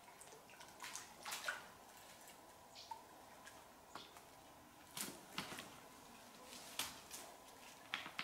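A large hooked fish thrashing at the surface of deep water: a series of short, irregular splashes and drips.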